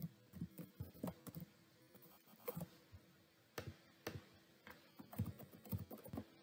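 Faint computer keyboard typing: irregular keystrokes as an email address and then a phone number are typed into a web form, with a short pause about three seconds in.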